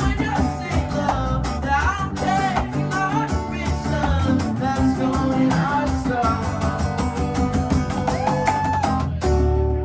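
Live band playing the closing bars of an upbeat song, with electric guitar, bass and drums. The band stops on a final hit about nine seconds in, leaving a held chord ringing.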